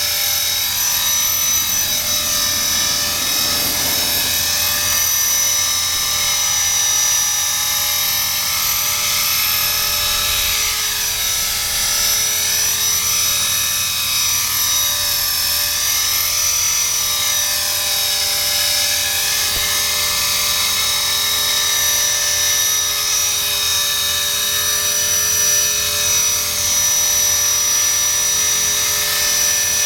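Electric Blade 400 radio-controlled helicopter hovering: a steady high-pitched whine from its motor and rotors, shifting slowly in tone as it drifts about.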